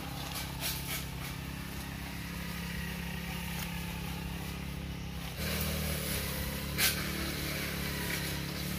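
A motor running steadily with a low hum, which shifts slightly and gets a little louder just over halfway through. A single sharp click comes near the end.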